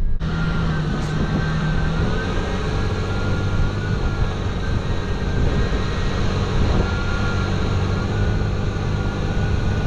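Pickup truck driving along a snowy road, heard from outside the cab: a steady engine hum under continuous wind and tyre noise.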